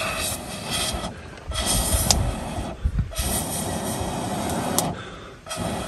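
A person blowing hard through a blowpipe into a wood cooking fire, four long blows with short pauses for breath, to liven a fire that is slow to burn.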